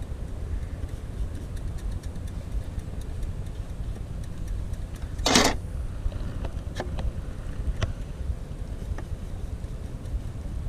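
Steady low outdoor rumble, with one brief loud rustle about halfway through and a few light clicks after it.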